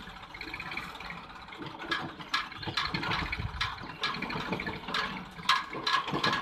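Tractor engine running on the rails, with irregular sharp clicks and knocks over it.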